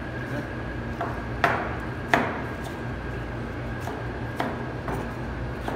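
Kitchen knife cutting a red bell pepper on a plastic cutting board: several irregular knocks of the blade on the board, the loudest about a second and a half and two seconds in, over a steady low hum.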